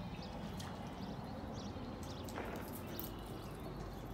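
Waterside outdoor ambience: a low steady rumble with faint bird chirps and a few light clicks scattered through it.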